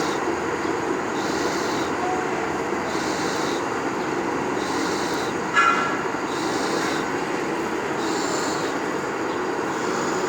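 Workshop machinery running steadily with a high hiss that pulses about every second and a half. One sharp metallic clang rings out about five and a half seconds in.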